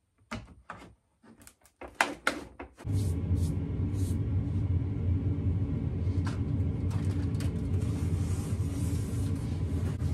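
A few sharp plastic clicks and knocks as slot-car track pieces are pressed together. About three seconds in, background music with a heavy, steady bass cuts in abruptly and carries on.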